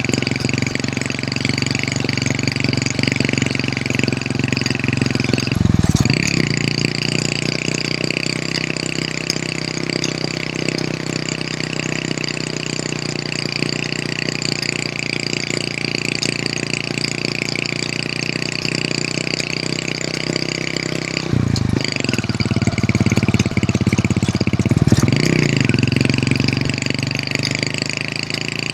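Hero Honda CD100's single-cylinder four-stroke engine running steadily under way. Its note changes briefly about six seconds in and again a little past twenty seconds.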